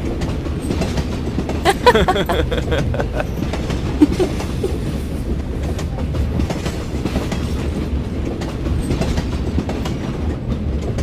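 Metro train running, heard from inside the carriage: a steady low rumble with the clatter of the wheels and a couple of sharp clacks, about two and four seconds in.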